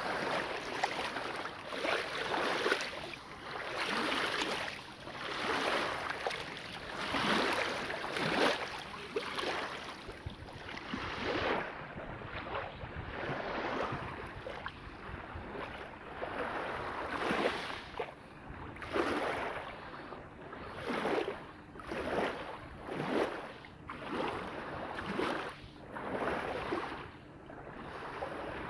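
Small waves lapping on a shingle beach: a soft wash over the pebbles that swells and fades again and again, about once a second.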